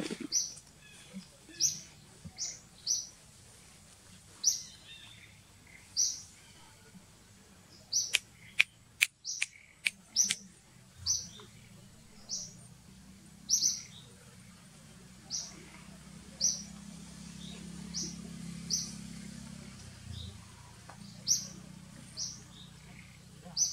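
A bird chirping over and over in short, high single notes about once a second. A quick run of sharp clicks comes about eight seconds in, and a faint low drone runs through the middle.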